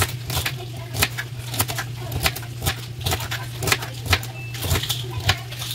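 Kitchen knife chopping celery on a plastic cutting board: sharp knocks of the blade on the board, about two a second, over a steady low hum.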